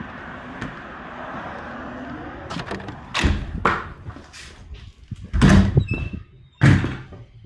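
A door being worked: a steady hiss, then from about three seconds in a run of about five loud thuds and rattles, the last two the loudest.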